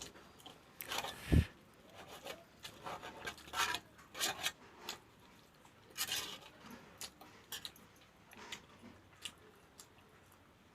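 Close-miked eating sounds: a person chewing and biting soft food, with irregular wet, crackly mouth noises and a low thump about a second and a half in.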